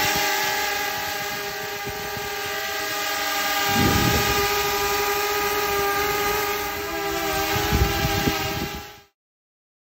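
DJI Mavic Mini quadcopter, fitted with propeller guards, hovering close by: its four propellers make a steady, high whine of several held tones. Two low rumbles of air hit the microphone, about four and eight seconds in, and the sound cuts off suddenly about nine seconds in.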